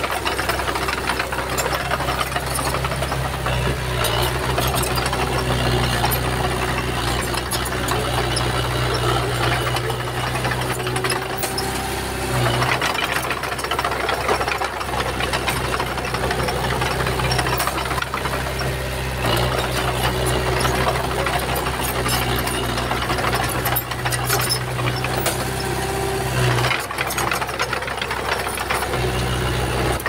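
Komatsu bulldozer's diesel engine running steadily under load with a dense rattling clatter. The engine note dips briefly twice, about twelve seconds in and again near the end.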